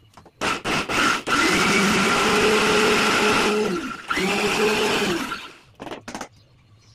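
Electric mixer grinder with a small steel chutney jar grinding mint and greens into a paste for pani puri water. It pulses briefly twice, then runs for a couple of seconds and coasts down, then runs again for about a second before winding down. A few short clicks follow near the end.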